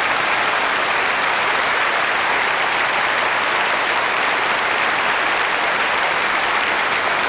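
A congregation applauding, a dense, steady clapping that holds at full strength throughout.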